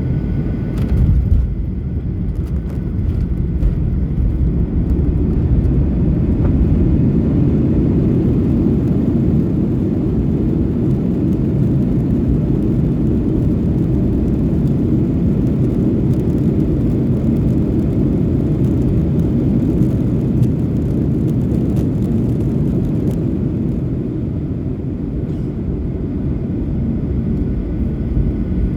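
Steady low rumble of an airliner's engines and rushing air, heard inside the passenger cabin during descent, with a brief louder moment about a second in.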